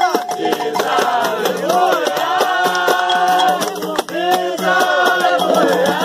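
Umbanda ritual music: an atabaque hand drum beaten with bare hands, with rattling percussion and several voices singing a ponto over it.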